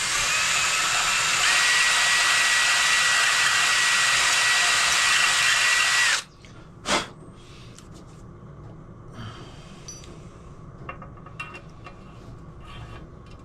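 Electric drill running steadily for about six seconds, spinning a drill bit in and out of a stud hole in a powder-coated alloy crankcase to clear powder coating from the hole. A high whine joins about a second and a half in, and the drill stops suddenly. A single sharp knock and faint clicks follow.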